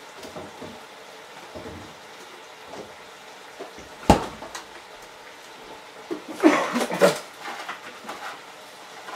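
Kitchen clatter of dishes and utensils being handled: one sharp knock about four seconds in, then a short run of clattering knocks a couple of seconds later.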